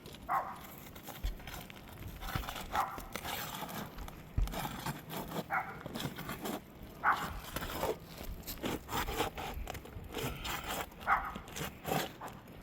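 Irregular scraping and tearing as a wind-damaged roof shingle is worked loose and pried out, in short rasps and crackles of brittle shingle material.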